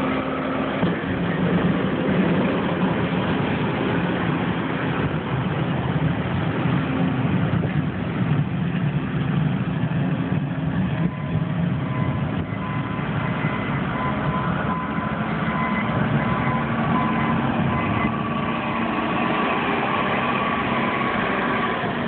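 Heavy diesel engines of a backhoe loader and a wheel loader running steadily while they clear snow.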